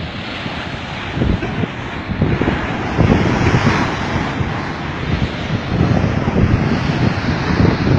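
Muddy flash-flood surge rushing in, with heavy wind buffeting the microphone; the noise swells about a second in and again about three seconds in.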